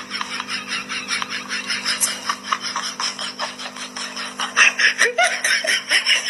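A person laughing hard and without a break, a rapid run of short 'ha' sounds, about five or six a second, over a steady low hum.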